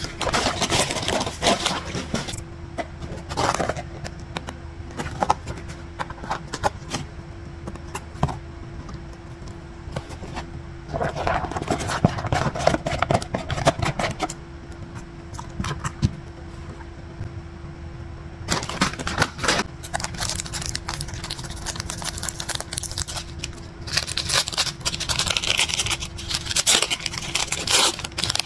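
Close-miked handling of takeaway food packaging on a wooden tray: paper rustling and crinkling, mixed with short knocks and scrapes as a box and containers are set down and moved. Near the end a paper wrapper is crinkled open. A faint steady hum runs underneath.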